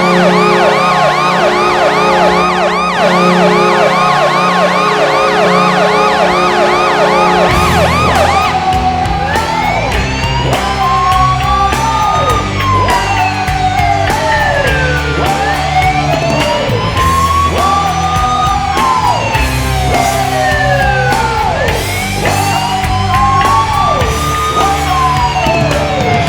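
Kahlenberg Q-3 arena goal horn blowing a steady multi-note chord with a fast warbling tone over it. About seven and a half seconds in the horn stops and a rock goal song takes over, with repeated siren-like rising and falling sweeps.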